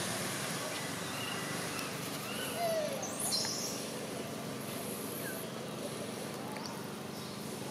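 Outdoor ambience: scattered short bird chirps over a steady background hum, with a couple of louder chirps around three seconds in.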